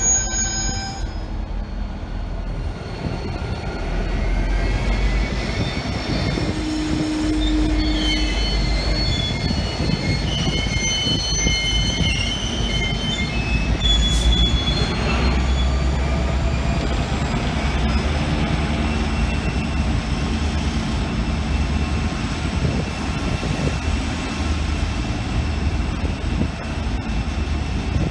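Container freight train's wagons rolling past on the rails with a steady low rumble. High-pitched wheel squeal comes and goes through the middle of the passage.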